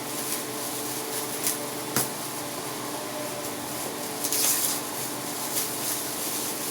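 Gift packaging being handled and opened: brief rustling of wrapping and a sharp click about two seconds in, over a steady fan-like background hiss.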